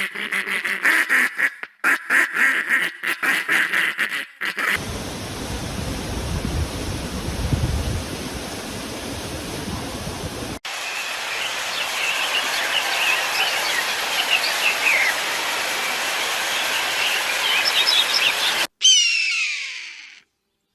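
A duck quacking rapidly, about four quacks a second, for the first four seconds or so. A steady rushing noise with a low rumble follows, then birds chirping over background noise, and a single falling call near the end.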